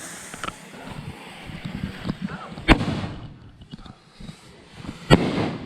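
Fireworks going off: two loud, sharp bangs about two and a half seconds apart, the second with a short rumbling tail, and fainter pops before them.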